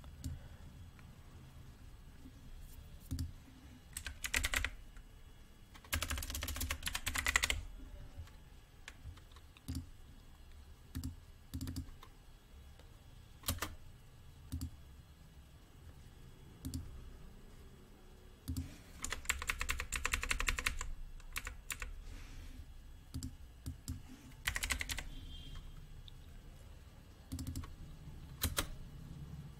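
Computer keyboard typing in a few short bursts, with single clicks scattered between them.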